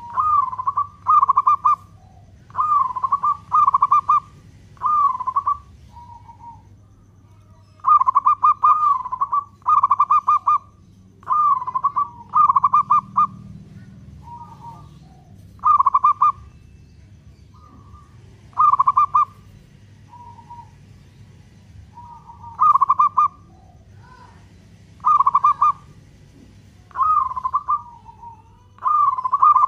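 Local zebra dove (perkutut) singing its long-beat song: short phrases of rolling coos, each about a second long, repeated again and again with pauses of one to three seconds between.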